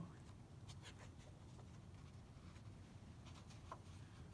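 Near silence, with a few faint paper ticks and rustles as a page of a hardcover picture book is turned by hand.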